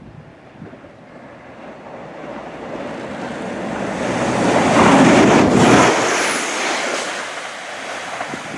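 Northern Class 195 diesel multiple unit approaching and passing along the line. Its rushing noise builds to a peak about five seconds in, then fades as it moves away.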